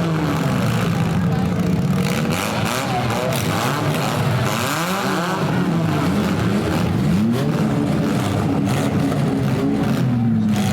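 Several compact car engines revving up and down at once, their pitches rising and falling over one another, as the cars drive and push in a demolition derby heat.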